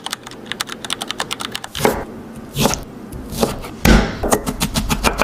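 Knife chopping on a cutting board: a fast run of short taps, about eight a second, then a few heavier, separate knocks.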